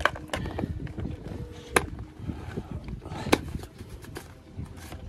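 Lid being fitted and twisted onto a chlorine container until it locks: a few sharp clicks and knocks amid handling noise.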